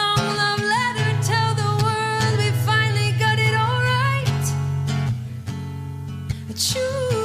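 A love song playing: acoustic guitar with a sung melody line over it.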